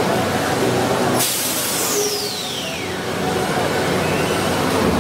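Ride's water-fountain jets spraying, with a sudden loud hiss about a second in and a whistle that falls in pitch over the next two seconds.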